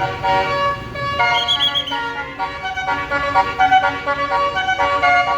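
Bus basuri telolet air horn playing a melody in quick stepped notes, with the bus's engine rumbling underneath.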